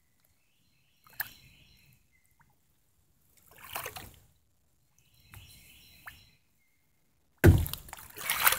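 Kayak paddle dipping and sloshing in calm creek water: three soft splashes about two seconds apart, the first with a sharp click. Near the end comes a sudden, much louder rush of noise.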